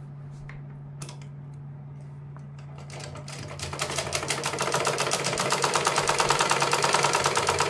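Usha sewing machine stitching cloth. After a few small clicks as the fabric is set under the needle, it starts about three seconds in and speeds up to a fast, even run of stitches.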